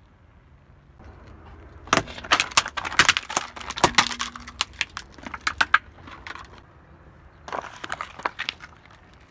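Car tyre rolling over and crushing brittle white plastic: a dense run of sharp cracks and snaps lasting about four seconds. Near the end comes a shorter burst of crackling as the tyre crushes small cardboard boxes.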